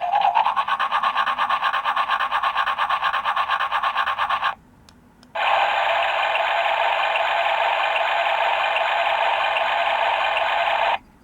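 Electronic sound effects from a 1997 Dentist Barbie playset's toy speaker: a rapid pulsing buzz for about four and a half seconds, a brief pause, then a steady buzz for about six seconds.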